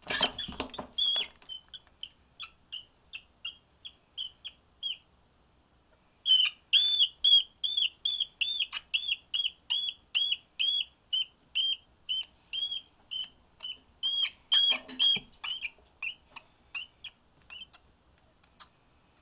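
White rat squeaking in distress while a ball python constricts it: short, high squeaks about two or three a second, with a pause of about a second early on the way, fading out near the end. A scuffle of thrashing at the very start as the python seizes the rat, and a brief one again later.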